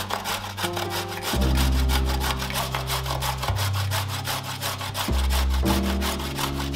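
A raw carrot rubbed quickly up and down on a stainless-steel box grater, making fast, even rasping strokes as it shreds, with background music underneath.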